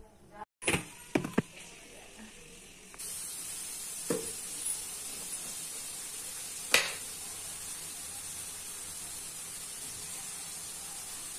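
Kitchen knife cutting a lemon on a wooden chopping board: a few sharp knocks and clicks, the loudest about two-thirds of the way through as the blade meets the board, over a steady hiss.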